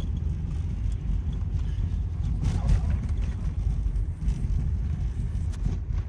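Steady low road rumble of a car driving, heard from inside the cabin, with a brief louder sound about two and a half seconds in.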